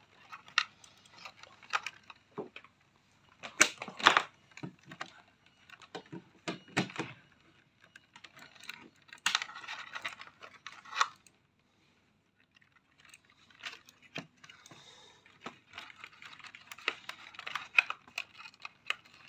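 Scattered light plastic clicks, taps and rustling as wires and plug connectors are handled and pressed onto a robot vacuum's main circuit board, with a few sharper clicks.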